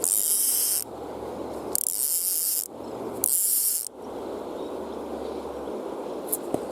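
Fly reel's click drag buzzing in three short pulls as line is stripped off the reel, over the steady rush of the river.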